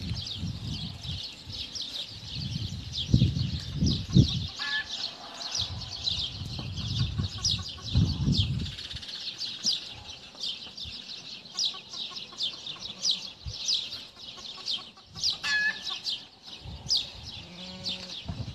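Dense, rapid high chirping of birds throughout. Two short, louder calls stand out, about five seconds in and near sixteen seconds, and there are bouts of low rumbling around three to four seconds and eight seconds in.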